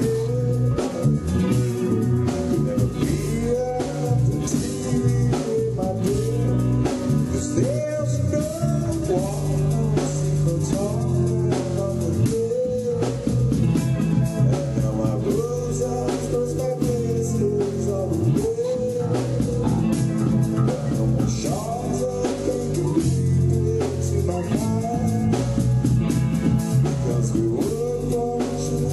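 Live rock band playing at a steady loud level: electric guitar, electric bass and drum kit.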